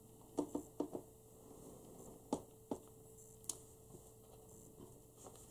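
Sheets of paper being leafed through and handled, giving a few soft crinkles and taps, several in quick succession in the first second and a few more spaced out after, over a faint steady hum.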